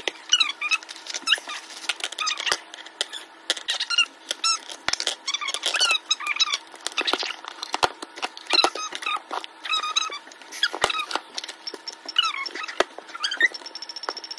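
Repeated short squeaks and clicks of plastic packaging and the plastic radio being handled while a Midland weather alert radio is unpacked. A steady high tone begins near the end.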